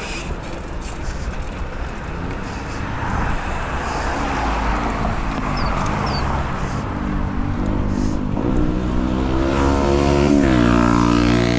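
A motor vehicle engine running close by and growing louder; its pitch rises, then drops back near the end, over a low rumble.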